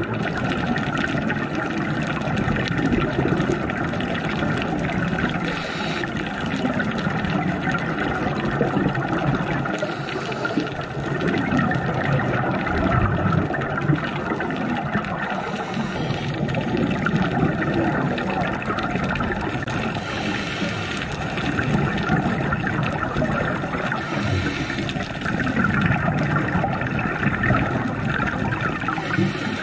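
Steady underwater water noise with gurgling.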